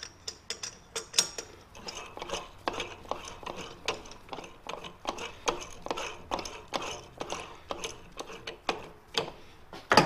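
Irregular metallic clicks and clinks, a few each second, of lathe workholding being handled as a 1-inch hardened collet is fitted through the back of the spindle, with one sharper knock near the end.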